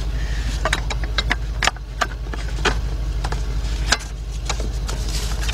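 Hard plastic engine cover knocking and clicking against the engine parts as it is worked loose and slid forward, with a dozen or so sharp clicks over a steady low rumble.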